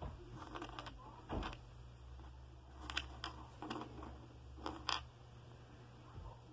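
Small plastic Lego bricks clicking and tapping against each other and the tabletop as a hand picks them up and presses them, a handful of light clicks with the sharpest about one and a half seconds in, over a faint steady low hum.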